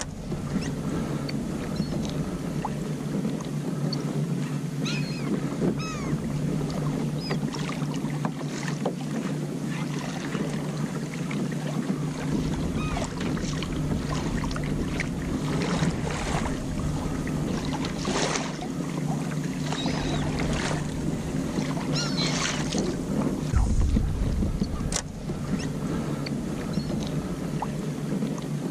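Water slapping and lapping against a kayak hull on choppy open water, with wind rumbling on the microphone.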